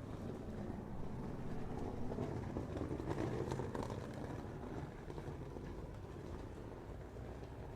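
Quiet street ambience with a vehicle passing: its low rumble swells to a peak about three seconds in and fades away.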